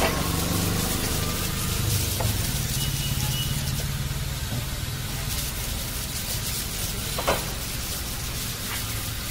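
Steady street-stall background noise: a low hum of traffic under an even hiss, with a couple of light clicks about two seconds in and again near the end.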